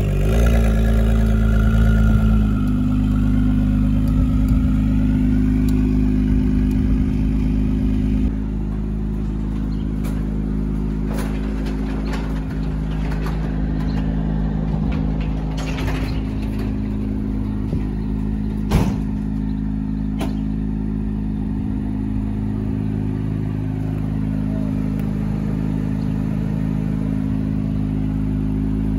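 The 2017 Acura NSX's twin-turbo 3.5-litre V6, modified with downpipes, idling steadily. The idle is louder at first, drops a step a couple of seconds in and settles a little quieter about eight seconds in. A few light clicks come in the middle.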